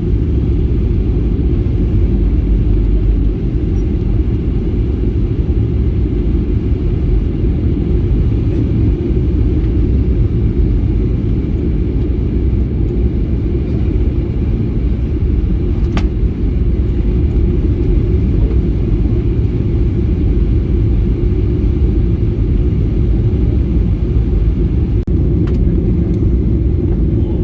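Steady airliner cabin noise in flight: the engines and rushing air make a loud, even low rumble, with a faint high whine above it and a single light click about halfway through.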